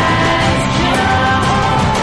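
Music: an instrumental passage of a song, with held melody notes over a full, steady band accompaniment.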